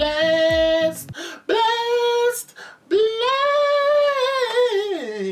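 A man singing in a high voice, holding two long drawn-out notes with vibrato, the last one sliding down near the end. Backing music with a low beat plays under the first second, then stops.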